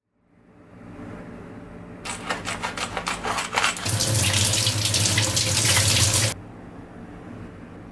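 A kitchen tap running hard into a sink for about two seconds while mackerel fillets are rinsed, cut off suddenly, after a few seconds of crinkling and rustling.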